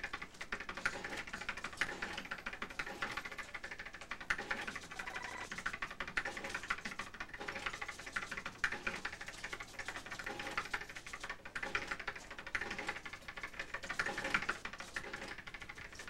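Rapid, continuous clatter of office machine keys being typed on, many sharp clicks a second without a break.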